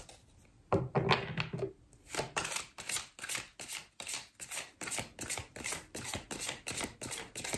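A tarot deck being shuffled by hand, the cards slapping and swishing in a steady rhythm of about three to four strokes a second from about two seconds in, after a few louder knocks of the deck being handled near the first second.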